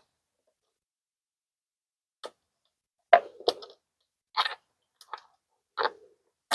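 Short, separate clicks and clinks of a hand tool and cable terminals against a battery's terminal posts as the ground and positive cables are taken off. They come about every half second to a second, starting about two seconds in.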